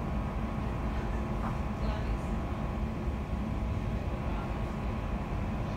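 London Overground Class 710 electric train running at speed, heard from inside the carriage: a steady low rumble of wheels on track, with faint steady tones above it.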